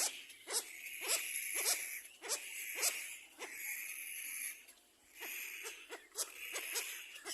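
Little black cormorant chicks begging for food: a string of short, wheezy, rasping calls, about two a second, with a brief lull about five seconds in.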